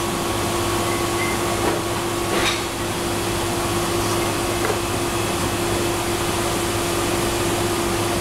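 Steady hum and rushing noise of commercial kitchen machinery, with a constant low tone. A faint tap about two and a half seconds in.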